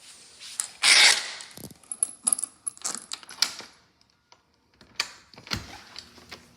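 Handling of a mechanical keyboard's box and packaging: a short rustle about a second in, then a quick string of light clicks and clinks, and a few more clicks and a dull knock near the end.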